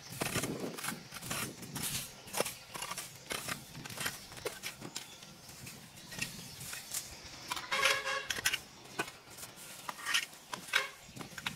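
Irregular snipping, crackling and rustling of overgrown vegetation being cut and pulled by hand, with no engine running. A short pitched squeak comes about eight seconds in.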